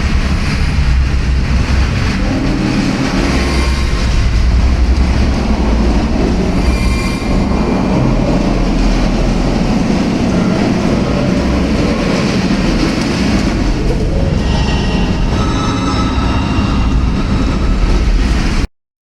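Train running on rails: a heavy, continuous low rumble with metallic wheel squeals that come and go. It cuts off suddenly near the end.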